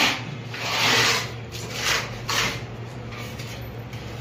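Putty knife scraping wall putty across a plastered wall: about four rasping strokes, each under a second long, the longest in the first second.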